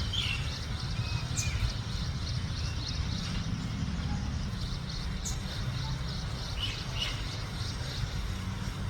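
A few short, separate bird chirps, one right at the start and a pair about seven seconds in, over a steady low background rumble.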